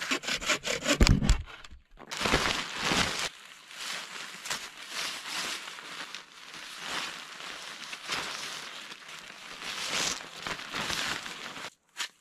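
Rustling, crinkling and crunching of a tarp, evergreen boughs and snow being handled and packed while roofing a snow-trench shelter. A run of loud knocks and thuds comes in the first two seconds.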